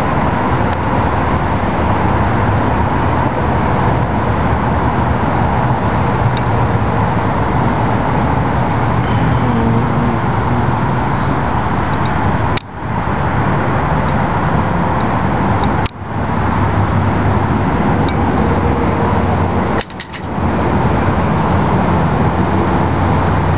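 Steady rush of freeway traffic noise, briefly dropping off three times.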